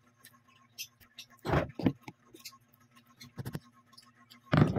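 Eating sounds: chewing and mouth noises, with a few light clicks, then ceramic dishes clinking as a bowl is tipped out over a plate near the end.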